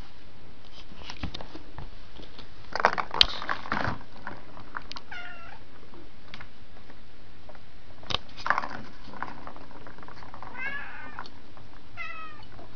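Kitten meowing several times, short wavering calls about five seconds in and again near the end. Between them come clusters of sharp knocks and rattles, the loudest about three seconds in.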